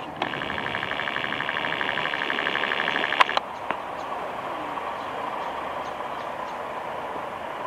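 Siemens Desiro electric multiple unit approaching on the station tracks. For about the first three seconds there is a rapidly pulsing, high ringing sound that cuts off with a sharp click, followed by a second click. After that the train runs on steadily, with a thin whine.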